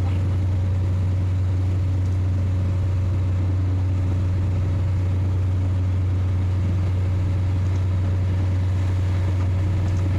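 Steady low hum of a running motor, even in pitch and level.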